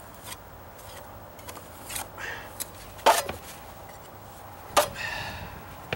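Putty knife scraping and smoothing wet patching compound on a wooden deck stair tread: a few short scrapes and two sharp taps, the loudest about three seconds and nearly five seconds in.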